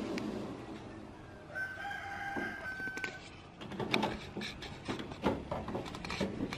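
A rooster crows in the background, one long held call starting about a second and a half in, over a steady hiss. From about the middle on, a metal knife clinks and scrapes against the aluminium steamer pan as it is pushed into the steamed brownie to test whether it is done.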